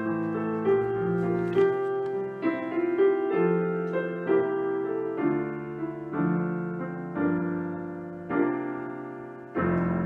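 Piano playing a slow instrumental passage of chords and single notes, struck about once a second and left to ring, with a last chord struck near the end and held.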